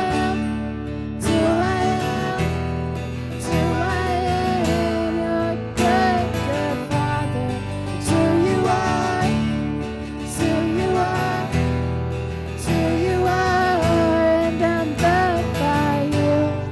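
Worship song played live: a voice singing a melody over strummed acoustic guitar and a sustained low accompaniment.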